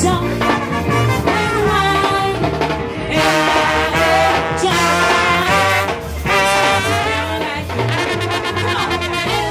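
Live brass band playing an upbeat tune, with trombones and trumpets carrying the melody over a low bass line.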